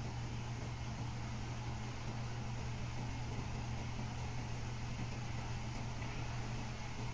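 Isuzu Giga 6x4 dump truck's diesel engine idling steadily, with an even low hum, while the tipper body is lowered.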